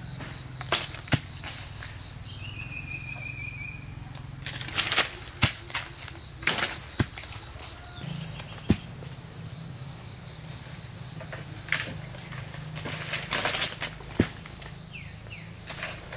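Steady high-pitched insect drone, with irregular sharp clicks and knocks from nearby handling or movement, the loudest sounds here. A short falling chirp about two and a half seconds in.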